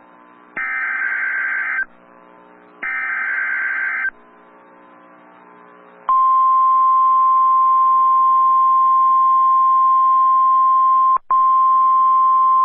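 NOAA Weather Radio Emergency Alert System signal. The last two of the three SAME header data bursts sound as harsh warbling chirps about a second long and a second apart. About two seconds later the steady, louder 1050 Hz warning alarm tone starts, with a momentary break near the end, announcing a new warning.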